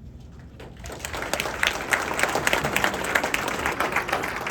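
An audience applauding, dense irregular clapping that swells in about a second in and eases off near the end.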